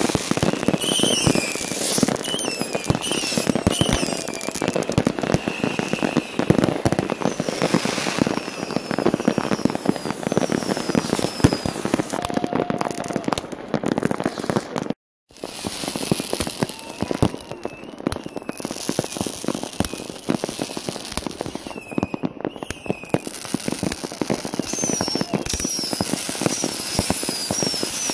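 Many fireworks going off together: dense crackling and bangs with a steady hiss, and repeated short falling whistles from whistling fireworks. The sound cuts out for a moment about halfway.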